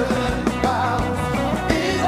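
Live band music with singing: a voice sings over a steady bass line, with drum hits landing about every half second.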